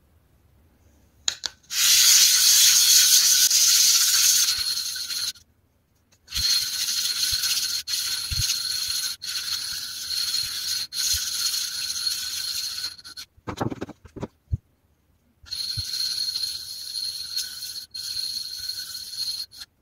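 An Apex-format sharpening stone being lapped flat in circles on a gabbro granite plate with wet abrasive grit, the rough-flattening stage. It makes a steady gritty scraping hiss in three bouts, starting about two seconds in, with a short pause and then a longer pause holding a few light knocks between them.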